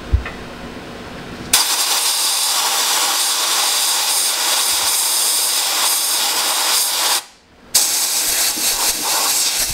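Compressed-air blow gun hissing in two long blasts with a brief break about two-thirds of the way through, blowing loose, flaking factory e-coat (cataphoretic paint) off a Toyota Land Cruiser's chassis frame.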